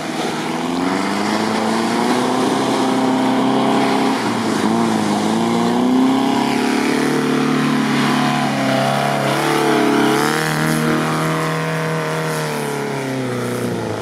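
Off-road 4x4's engine revving up and down under load as it drives through shallow water and wet sand.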